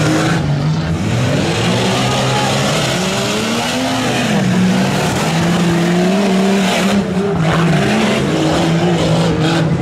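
Off-road racing trucks' engines revving hard on a dirt track, pitch rising and falling again and again over a steady wash of engine and tyre noise.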